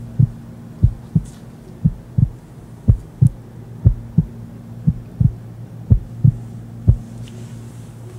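A Chihuahua's heartbeat heard through a stethoscope: eight paired lub-dub beats, about one a second, over a steady low hum.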